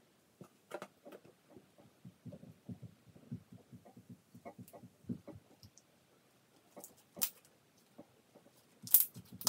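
Soft, glossy soap-and-glue slime being kneaded, stretched and folded by hand, giving a string of irregular wet squishes and small clicks as trapped air is squeezed out. Two sharper, louder pops come near the end.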